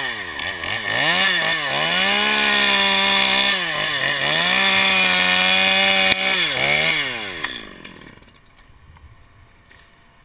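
Gas chainsaw revving at full throttle several times, its pitch dipping and climbing again, while cutting through a pine limb; the throttle is let off about seven seconds in and the saw dies away.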